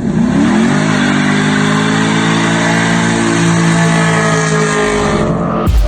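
Car engine revving up and holding at high revs, then cut off suddenly near the end.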